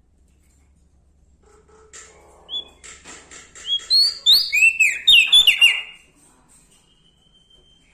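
Prenjak daun, a small songbird, singing: a burst of quick chirps and trills about two seconds in builds to a run of loud, high, down-slurred whistled notes, stopping about six seconds in, then a faint thin whistle.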